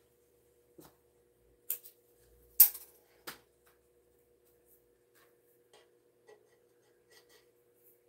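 Handling noise from a shiny red tote lining being folded and pinched along its taped top edge: scattered crinkles and clicks, the loudest a sharp crackle about two and a half seconds in, then only faint ticks. A faint steady hum runs underneath.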